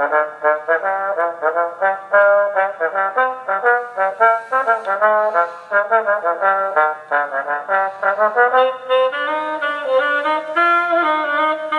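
Music played through a small Bluetooth speaker, heard with no bass: a fast run of short, brass-like notes, then longer held notes from about two-thirds of the way in.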